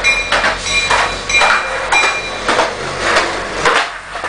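Skateboard rolling fast over a concrete platform, its wheels clacking over the pavement joints about two to three times a second, with a sharper crack near the end as the board's tail is snapped for an ollie down the stairs.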